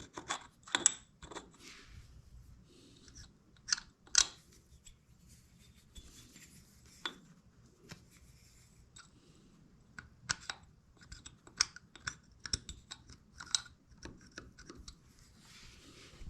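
Irregular sharp clicks and light scraping, several close together in the first second and a half, scattered more sparsely after, with a quieter stretch in the middle.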